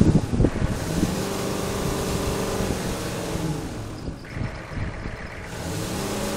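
GM 6.5-litre turbo diesel V8 revved hard in neutral. It climbs and holds high revs for a few seconds, drops back toward idle about three and a half seconds in, then revs up again near the end. The owner takes it for a healthy, strong-running engine.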